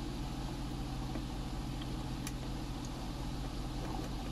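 Steady low hum with a faint hiss, broken by a few faint ticks.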